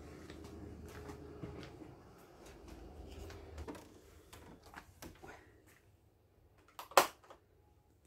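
Footsteps and light knocks while walking through a wooden doorway, then one sharp, loud knock about seven seconds in from the wooden door.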